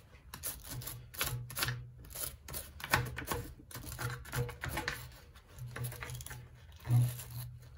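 Small synthetic-bristle brush scrubbing dirt from around the tappet block screws on an aluminium Harley-Davidson flathead engine case: a quick, irregular run of short brushing strokes.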